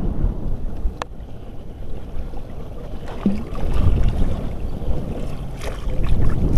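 Wind rumbling on the microphone over choppy sea water, with one sharp click about a second in and a few faint handling sounds.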